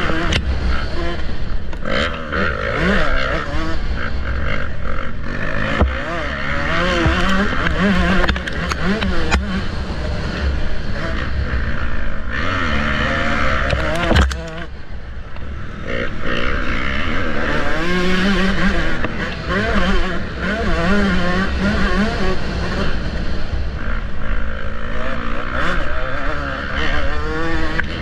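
Motocross bike engine revving up and down as it is ridden around a dirt track, heard from an action camera on the rider, with a steady low wind rumble on the microphone.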